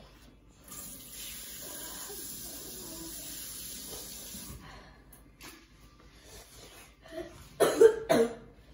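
Kitchen tap running for about four seconds as hands are rinsed under it at the sink, then a person coughs twice, loudly, near the end.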